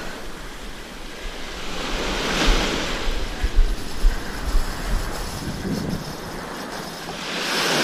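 Small surf waves washing up and draining back on a sandy beach, swelling about two seconds in and again near the end. Wind buffets the microphone in low thumps midway through.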